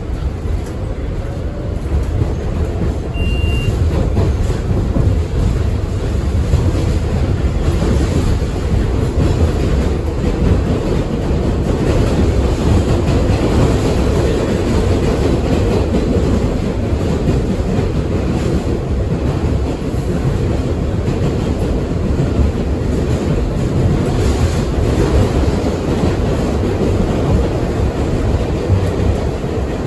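R62A New York City subway train starting to move along the track, with a faint rising motor whine and a build in loudness over the first few seconds. It then runs steadily, with a constant rumble of wheels on rail.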